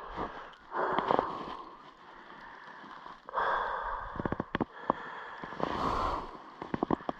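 A man's breathing and sniffing close to the microphone: three loud breaths of about half a second each, between them short sharp clicks of footsteps or handling, two quick clusters in the second half.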